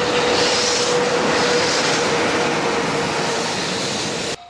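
EH500 electric locomotive and its container wagons of a freight train rolling past close by: a steady rush of wheels on rail with a steady tone running through it. It cuts off suddenly near the end.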